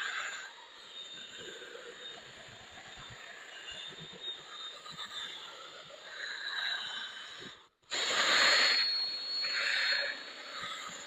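Lens clarifying compound being rubbed into a plastic headlight lens, giving an uneven rubbing hiss. It breaks off briefly about eight seconds in and comes back louder.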